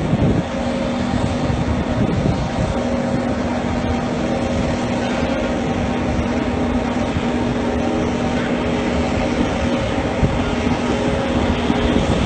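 Heavy-equipment engine running steadily: a constant mechanical drone with a steady hum through it.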